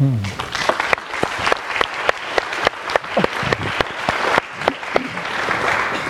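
Audience applauding: many people clapping together, the applause thickening a little near the end.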